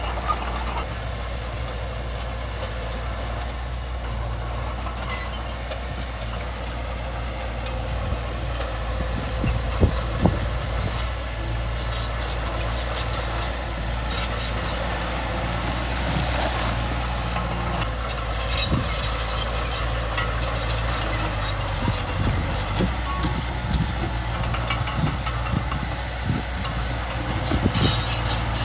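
Diesel engine of heavy earthmoving machinery running steadily, with scattered metallic clanks. Bursts of high-pitched screech or hiss come about ten seconds in, again around nineteen seconds, and near the end.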